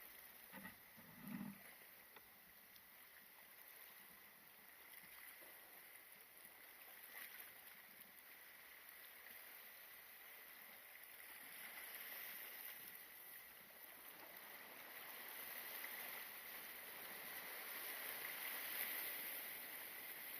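Faint sea water washing against the shore rocks, with a steady hiss that swells in the second half. A couple of soft thumps come about a second in.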